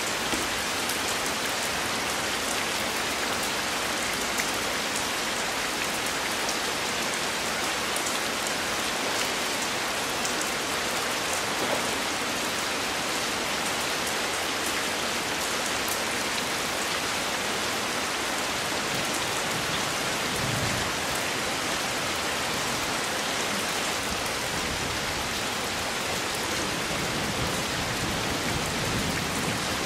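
Heavy rain falling steadily on a pool and wet rock.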